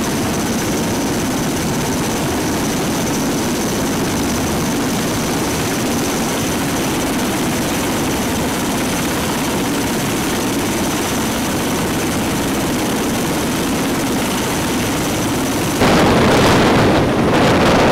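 MV-22 Osprey tiltrotor's engines and proprotors running in a steady drone with a faint high whine as it takes off from a ship's flight deck. About sixteen seconds in, wind buffets the microphone loudly.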